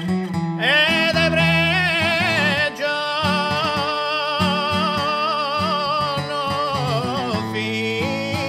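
Background music: a singer holding a wavering melody over instrumental accompaniment.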